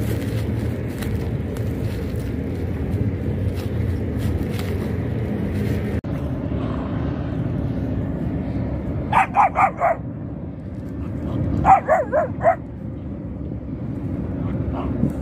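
Puppies yapping in two quick runs of about four high yaps each, a couple of seconds apart, over a steady low rumble.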